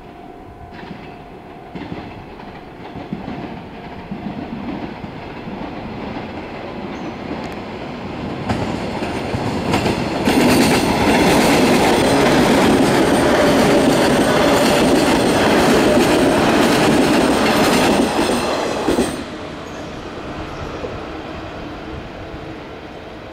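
JR 115 series electric multiple-unit train approaching and passing close by: the running noise of wheels and motors builds slowly, with clicks of wheels over rail joints, is loudest for about nine seconds as the cars go past, then drops off sharply as the last car clears.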